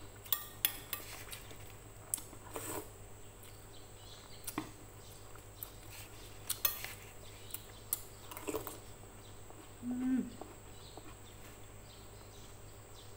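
Metal spoon and fork clinking and scraping against a ceramic plate in scattered, irregular strikes, with noodles being slurped and chewed between them.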